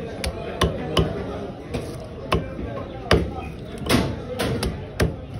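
Large knife chopping a tilapia on a wooden log chopping block: sharp knocks at an uneven pace, about two a second.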